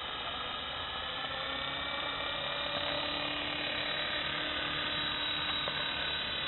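Electric RC helicopter's motor and rotors running with a steady high whine as it lifts off and hovers low, growing a little louder and higher about a second or two in.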